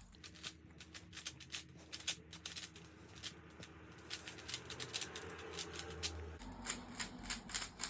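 Rubik's Cube being turned rapidly in a speedsolve: a fast, irregular run of small plastic clicks and clacks.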